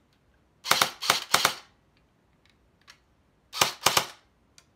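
Snow Wolf M3A1 grease gun airsoft electric gun firing two short full-auto bursts of rapid clicks, one about half a second in and another near the end.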